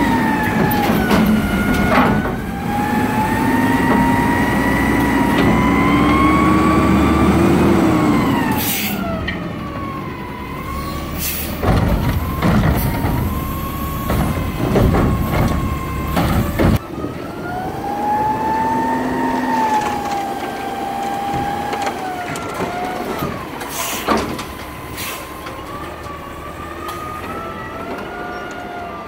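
McNeilus front-loader garbage truck on a Peterbilt chassis working its hydraulic arms to lift and dump a cart tipper. The hydraulics whine, rising and falling in pitch over the engine's rumble, and several sharp clanks and short hisses break in.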